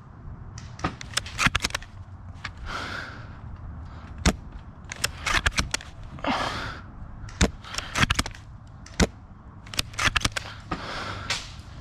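Airsoft gunfire: short bursts of rapid sharp snaps alternating with single loud cracks, repeated several times.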